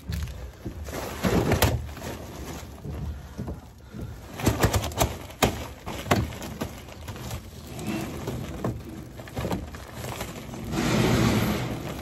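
Handling noise as a flexible duct's black plastic inner liner is worked over a round sheet-metal duct collar: irregular rustling with scattered knocks and taps, and a louder stretch of rustling near the end.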